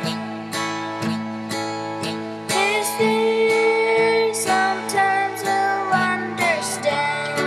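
A hymn accompanied by acoustic guitar strummed in a steady rhythm, about two strums a second, with a girl's voice singing over it and holding one long note midway.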